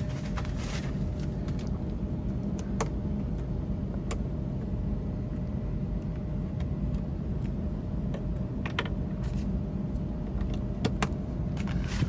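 A steady low machine hum with a faint steady tone, broken by a few sharp clicks and rustles from handling.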